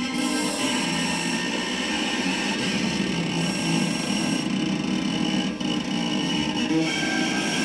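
Bowed electric string instrument played through heavy distortion effects: a dense, noisy sustained drone over a low held note.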